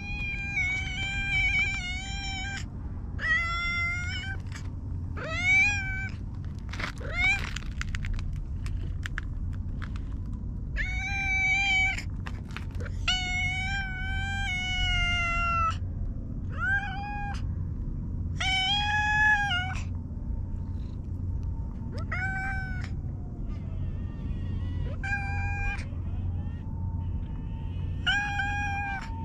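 Black-and-white stray cat meowing again and again, about a dozen calls, some short and some long and drawn out, over a steady low rumble.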